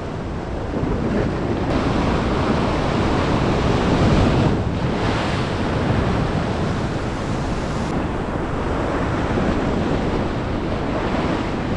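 Sea waves surging and breaking, with wind noise on the microphone; the wash swells loudest about four seconds in.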